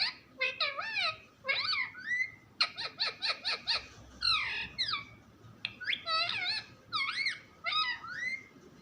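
Pet parrot squawking and chattering: short, sharply swooping squeaky calls in quick groups, with a fast run of clipped notes about a third of the way in.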